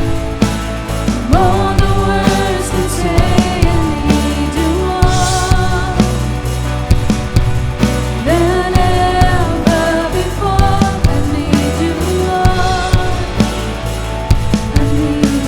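Worship band playing a Christian praise song: a singer's voice held over drums, bass and keyboards with a steady beat.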